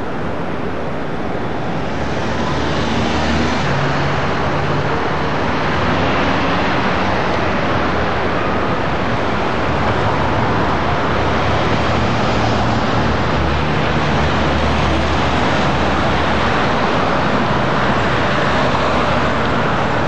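Steady city traffic and road noise: car engine hum and tyre noise, with a low engine drone that shifts in pitch now and then.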